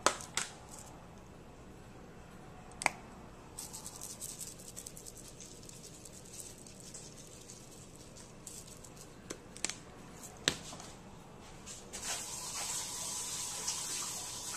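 Seasoning shaker shaken over a bowl of salad: a fast, dry rattle of grains with a few sharp clicks. Near the end a tap starts running.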